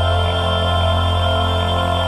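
Gospel bass singer holding a very low note, F1, steady and unbroken.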